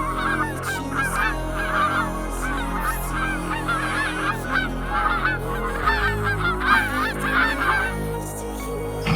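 A flock of birds calling in a dense chorus of short, repeated honking calls, over background music with low held notes. The calls stop about a second before the end, leaving only the music.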